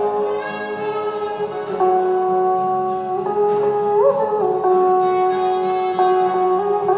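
Đàn bầu, the Vietnamese monochord, playing a slow melody: plucked notes that ring on and sustain, slid and bent in pitch by flexing the instrument's rod, with clear upward glides about two and four seconds in.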